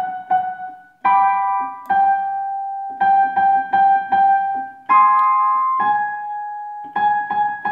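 Piano playing a vocal warm-up accompaniment: chords struck several times a second over held notes. A new, slightly higher chord comes in about one second in and again about five seconds in, stepping the exercise up in key.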